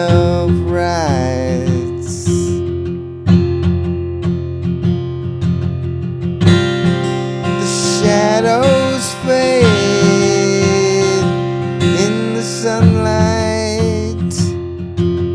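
Song with strummed acoustic guitar and, over it, a melody line that slides up and down in pitch several times.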